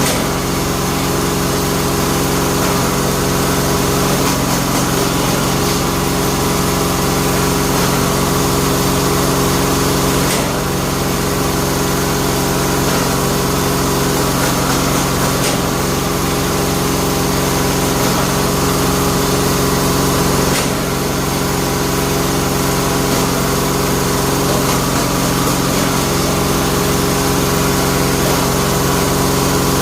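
Motor of a bamboo-splitting machine running steadily with a constant hum. The sound shifts slightly about ten and again about twenty seconds in.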